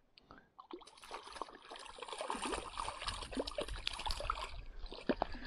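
A small hooked trout splashing and thrashing at the lake surface on a taut line. The splashing is a dense, crackling water noise that starts about a second in and keeps going.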